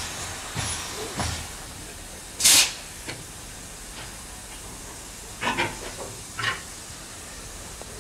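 Saxon VII K narrow-gauge steam locomotive 99 1746 standing and hissing steam, with one short, loud burst of steam about two and a half seconds in. A few shorter, sharper sounds follow a few seconds later.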